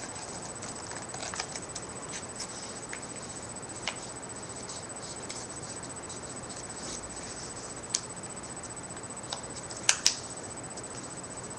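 Origami paper being folded and creased by hand: scattered soft crackles and clicks, with a sharper pair of clicks near the end, over a steady hiss.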